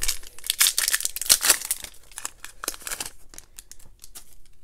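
Trading-card pack wrapper being torn open and crinkled, with dense crackling over the first two seconds, then lighter rustling and clicks as the cards are pulled out.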